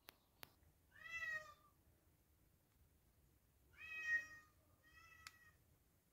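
Domestic cat meowing three times, short meows a few seconds apart, the third softer than the first two.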